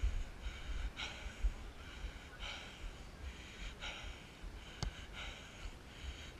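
A person breathing while running, one breath about every second and a half, with wind rumbling on the microphone and a single sharp click about five seconds in.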